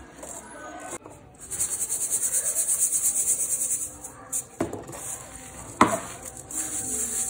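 Dry cement powder and grit shaken in a stainless-steel mesh sieve: a rhythmic, hissing rattle of about five shakes a second. Two sharp knocks come in the middle, and the shaking starts again near the end.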